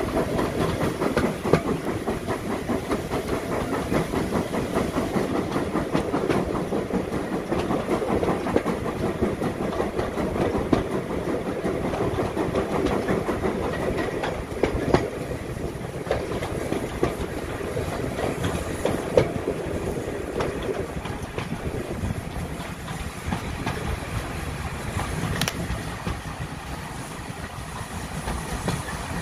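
Steam train running on rails, its wheels clattering over the rail joints, with steam hissing. The rattle eases off after about twenty seconds.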